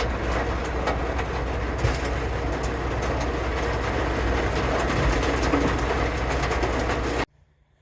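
Small hail pelting a vehicle in a dense clatter of fine ticks, over the steady low hum of the engine running. It cuts off suddenly near the end.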